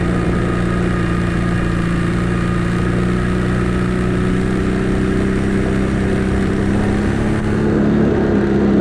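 ATV engine running steadily, its revs rising a little near the end.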